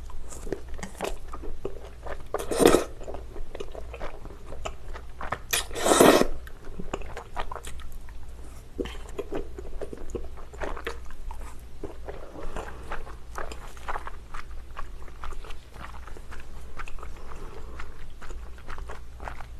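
Close-miked chewing of thick, chewy Chinese glass noodles in spicy sauce: many small wet mouth clicks, with two louder slurps about three and six seconds in.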